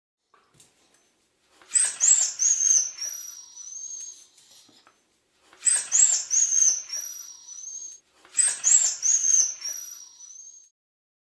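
A dog whining in three bouts. Each bout is a few short, high, falling whimpers running into a longer, slightly rising whine.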